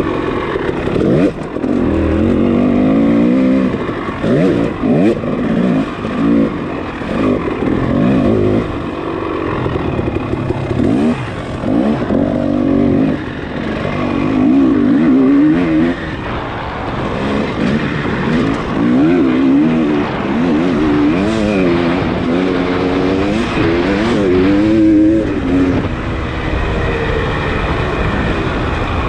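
Dirt bike engine revving up and down again and again under changing throttle, its pitch rising and falling every second or two as the bike is ridden hard.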